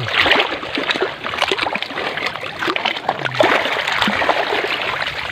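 Seawater splashing and trickling among the rocks of an intertidal coral shore: a steady wash peppered with many small crackling clicks.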